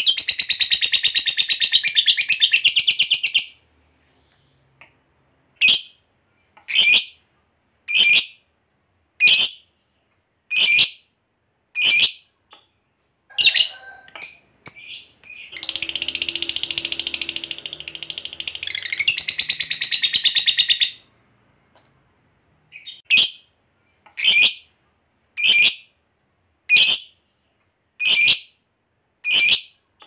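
Lovebird giving its long, rapid chattering trill ("ngekek panjang"), the full song of a bird in top singing form. The trill breaks off a few seconds in. It is followed by single sharp chirps about every second and a bit, a second trill of about five seconds in the middle, and more evenly spaced chirps.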